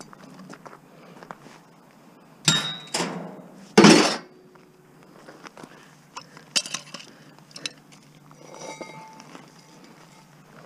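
Pieces of scrap metal clanking and ringing as they are dropped or tossed together: a few loud clanks between about two and a half and four seconds in, the loudest near four seconds, then lighter clinks.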